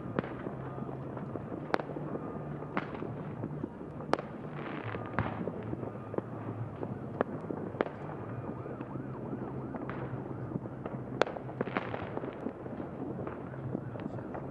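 Scattered fireworks and firecracker bangs: sharp cracks at irregular intervals, about one every second or two, over a steady background noise.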